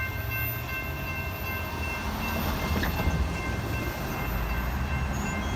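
Amtrak passenger train cars rolling past with a steady low rumble of wheels on rail. A faint steady high tone rings above it and fades out near the end.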